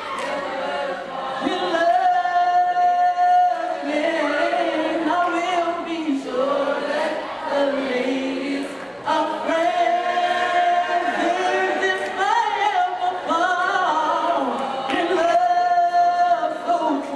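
A small group of teenage boys singing a cappella in harmony at a microphone, with the lead holding long sustained notes several times over the other voices.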